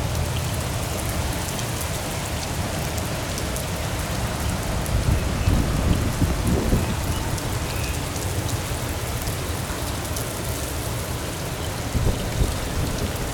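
Heavy wind-driven rain pouring down, with a low gusty rumble of wind on the microphone that swells about five to seven seconds in and again near the end.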